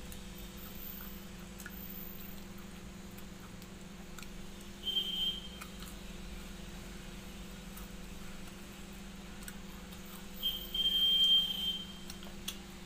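A high-pitched beep-like tone sounds twice, briefly about five seconds in and for over a second around eleven seconds in, over a steady low hum and faint small clicks of eating by hand.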